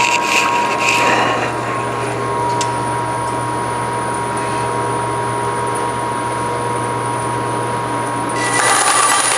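Forrest Manufacturing 2054R vertical-blade traveling-table bandsaw running steadily with a low hum and a steady whine, a few clicks near the start. Near the end the sound turns louder and harsher.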